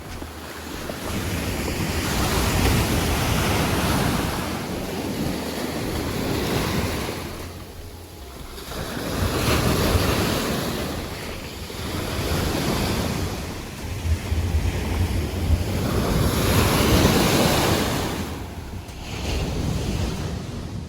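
Sea waves breaking and washing up the beach at high tide, the surf swelling and fading in slow surges every few seconds. Wind buffets the microphone throughout.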